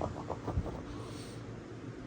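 Sleeping bulldog's snoring breaks off into a few short clicking grunts in the throat, followed by a brief hissing breath about a second in.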